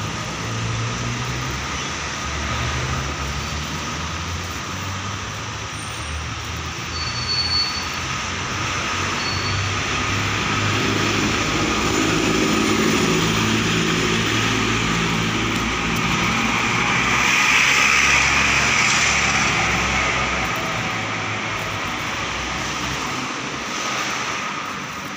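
Street traffic: cars running along the road beside the pavement, with one vehicle passing close, swelling to its loudest about eighteen seconds in and then fading away.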